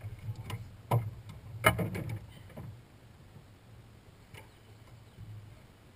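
Knocks and rattles on a boat deck as a just-caught bass is taken out of a landing net and handled, loudest about one and nearly two seconds in, then a few softer ticks.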